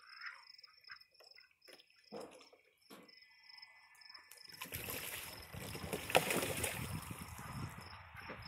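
Crickets chirping in a steady pulsing rhythm, with a few faint knocks in the first half. From about halfway a loud, rough rushing noise sets in and lasts until near the end.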